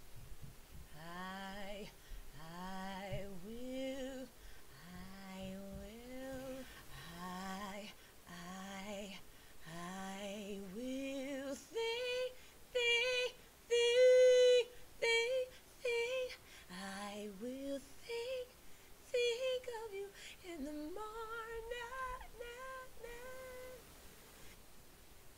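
A woman singing: short phrases of notes that slide upward, low in her voice for the first half, then higher, louder, short separated notes from about halfway through.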